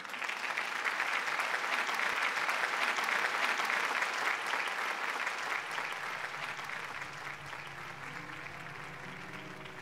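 Audience applauding. The applause starts abruptly, swells over the first few seconds and then slowly dies away.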